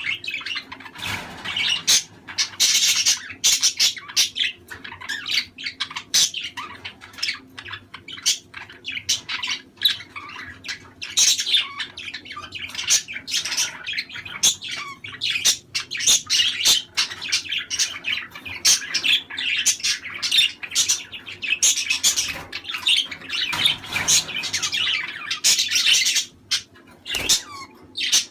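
A flock of budgerigars chattering and warbling: a dense, unbroken stream of short chirps, squeaks and clicks with occasional squawks. This is the kind of budgie flock chatter played to pairs to encourage breeding.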